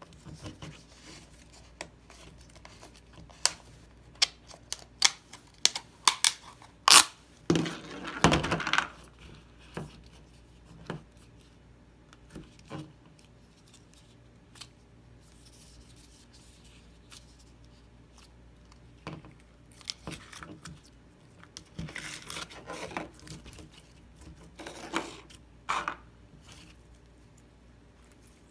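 Slime being handled by hand: scattered sticky clicks and crackles in short clusters, busiest in the first third and again near the end.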